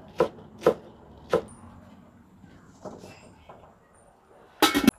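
A kitchen knife chopping on a cutting board: three sharp strokes in the first second and a half, then a pause. A short, loud clatter near the end.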